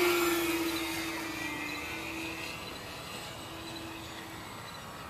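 Racing R/C model airplane engines whining as a plane passes low and flies off. The whine falls slightly in pitch and fades, and a fainter whine returns briefly about three and a half seconds in.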